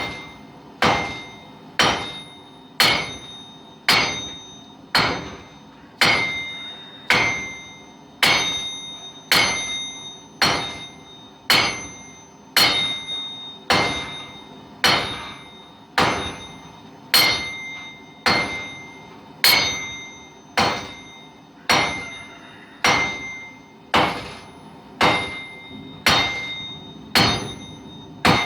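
Heavy 8-pound hammer striking hot steel on a forge block, steady blows about one a second, each with a short metallic ring: flattening out steel for a knife blade.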